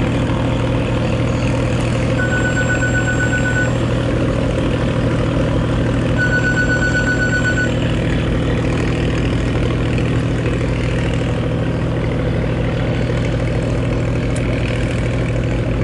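Boat engine running steadily, a low drone. A rapid, high electronic beeping sounds twice over it, each run lasting about a second and a half, about four seconds apart.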